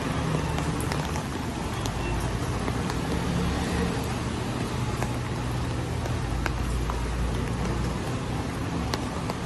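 Steady rain hissing on city streets, with scattered sharp drips, over the low hum of traffic engines that swells about five seconds in.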